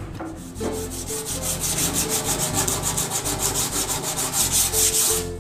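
Coarse 60-grit sandpaper rubbed by hand over the painted metal side panel of a Vespa LX 150 scooter, in rapid, even back-and-forth strokes that start about half a second in. The sanding is done to show up the dents, the low spots to be hammered out from the inside.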